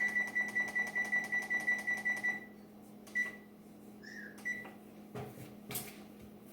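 Electronic beeps from a kitchen oven's control panel being set for 350 degrees and 40 minutes: a rapid run of high beeps, about four a second, stops about two and a half seconds in, followed by two single beeps.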